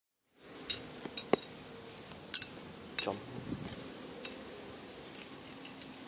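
Scattered light clicks and taps of sticks and plastic as hands set the stick trigger of a plastic basket bird trap, the sharpest about a second in.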